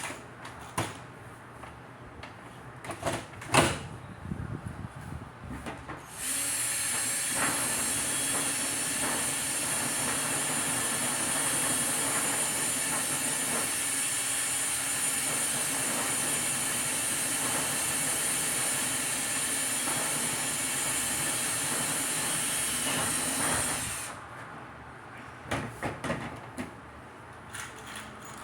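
A few clicks and knocks, then a machine starts suddenly and runs steadily with a loud hiss and a faint whine for about eighteen seconds before cutting off, followed by more knocks.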